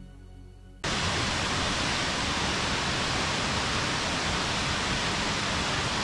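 Faint music fading out, then, just under a second in, a sudden switch to the steady rush of a 120 ft waterfall heard from near its base.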